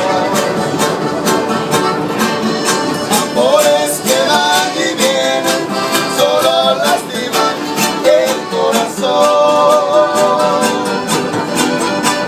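Instrumental opening of a Spanish-language song: an acoustic guitar strumming a steady beat, with a sliding melody line played over it.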